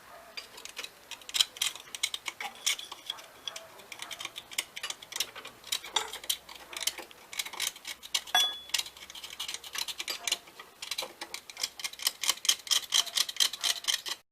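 A run of quick, sharp metal clicks from hand tools working bolts, coming in irregular bursts of several clicks a second, thickest near the end.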